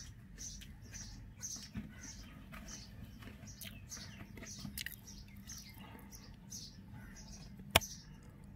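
Indian robin nestlings giving thin, high-pitched begging calls, repeated two or three times a second as they wait to be fed. A single sharp click sounds near the end.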